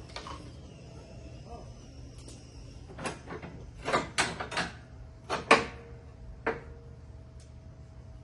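A run of sharp knocks and clanks, about eight in all, bunched between three and six and a half seconds in, over a low steady hum.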